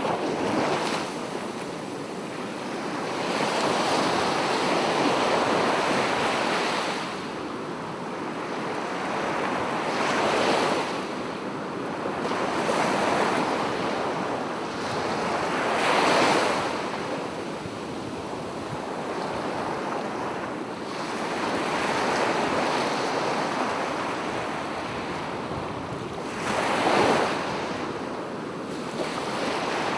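Ocean waves breaking on a sandy beach, swelling and washing up every few seconds, with a stronger surge near the middle and another near the end. A steady rush of surf fills the gaps.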